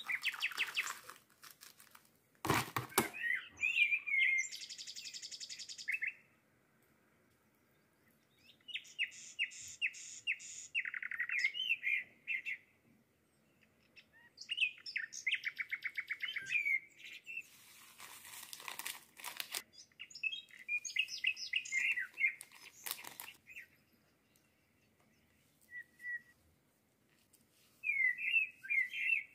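A small songbird singing in phrases of rapid trills and chirps with short pauses between them. A single sharp knock sounds about two and a half seconds in.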